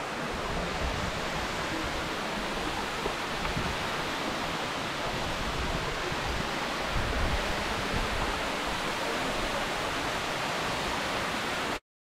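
Dimossari waterfall pouring into its pool: a steady rush of falling water that cuts off abruptly near the end.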